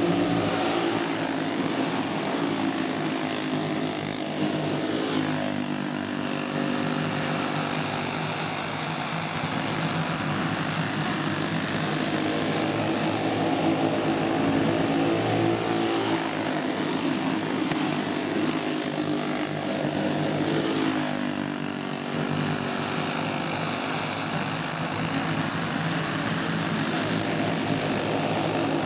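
A pack of flathead racing karts' small single-cylinder engines running hard, their drone swelling and bending in pitch several times as the karts pass close by.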